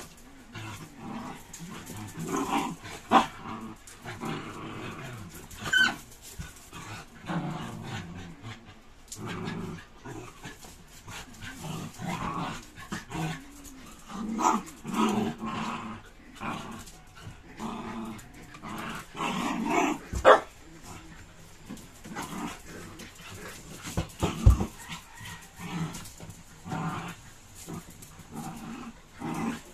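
Several dogs play-fighting, growling and grumbling on and off, with a few short, sharp yips or barks: one about three seconds in, one near six seconds and one a little past the middle.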